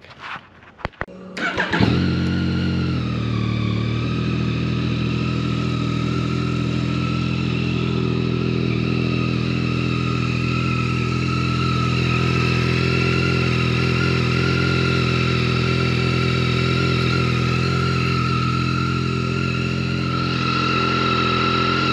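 Yamaha XSR900's inline-three engine starting about two seconds in, its revs settling within a couple of seconds into a steady idle through the stock exhaust.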